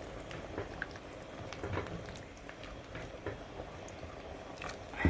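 A pot of rice cooking in coconut milk, bubbling on the boil with many small pops. A single sharp knock near the end.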